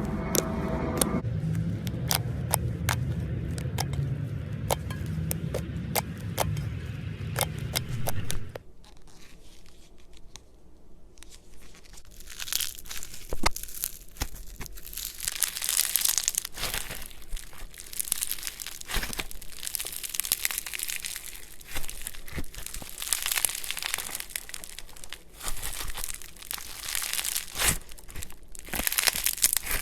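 Slime being squeezed, poked and stretched by hand, giving sticky pops and clicks, and from about twelve seconds in dense crackling. A low hum sits under the clicks for the first several seconds.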